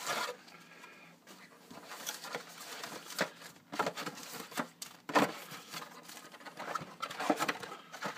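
A cardboard trading-card box being opened from the side and its foil card packs handled and pulled out: a series of irregular crinkling, scraping and tapping sounds.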